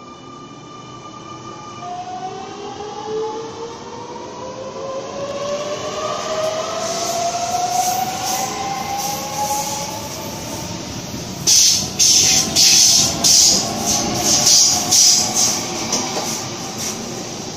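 Sydney Trains double-deck electric train pulling away: its traction motors whine in several tones that rise in pitch as it gathers speed. Then comes a run of loud, sharp clatters from the wheels on the track as the cars pass.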